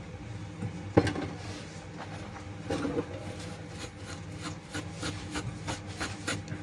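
Small clicks and light scraping of hand tools working on a circuit board: one sharp click about a second in, then a run of quick irregular ticks and scrapes, over a steady low electrical hum.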